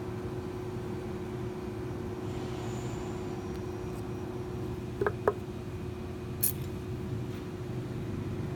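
A steady background hum with a faint held tone. About five seconds in come two quick light clicks, then a sharper, higher click a second later, as pliers work the steel wire of a safety pin.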